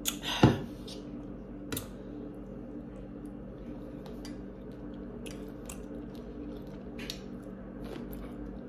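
Eating sounds: a sharp knock right at the start as a cup is set down on the table, another small knock a little later, then soft chewing and mouth sounds with small fork clicks against a bowl, over a steady low hum.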